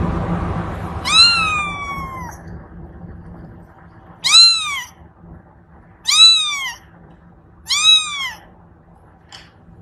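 A cat meowing four times: one long, drawn-out meow about a second in, then three shorter meows about two seconds apart, each rising and then falling in pitch.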